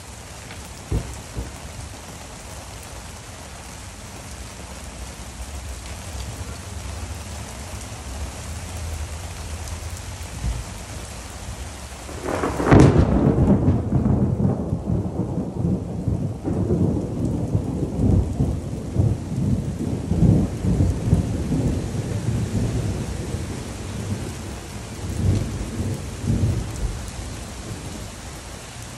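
Steady rain hissing. About twelve seconds in, a sudden thunderclap breaks, then rolls on as low, uneven rumbling for some fifteen seconds, fading near the end.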